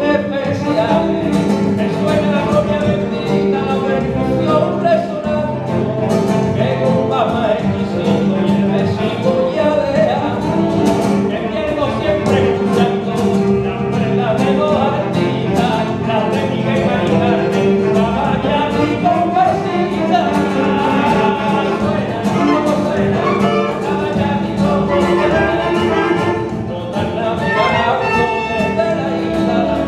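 Live band playing a rumba, with instruments and some singing, steady and loud.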